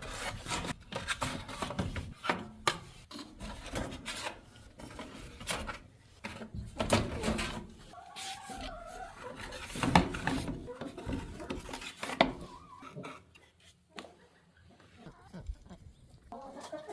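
Irregular scraping and knocking of a scoop working through chicken coop bedding, with a bird calling briefly about eight seconds in.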